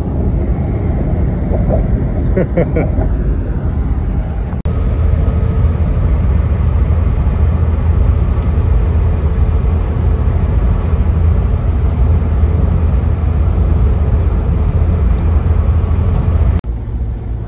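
Fire engine's engine and road noise droning steadily inside the cab while cruising on a motorway. The drone changes abruptly twice, about four and a half seconds in and a second before the end.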